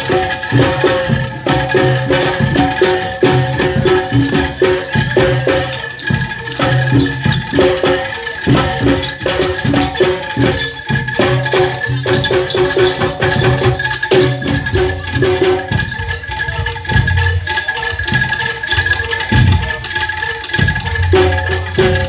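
Live jaranan gamelan music: Javanese drums and gong-chime percussion playing a steady, busy rhythm under held melodic tones.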